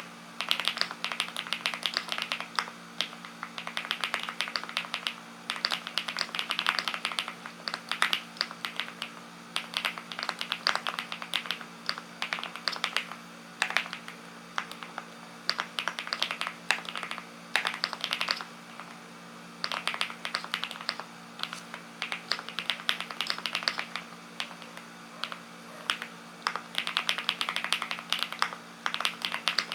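Typing on a Linky 87 mechanical keyboard: fast runs of clacking keystrokes in bursts of a few seconds, broken by short pauses.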